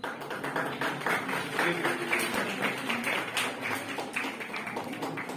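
Audience applauding: many hands clapping in a dense, uneven patter that starts suddenly.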